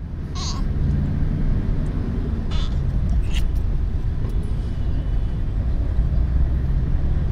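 Car road and engine noise heard from inside the cabin, a steady low rumble. A few brief higher-pitched sounds come over it near the start and again two to three and a half seconds in.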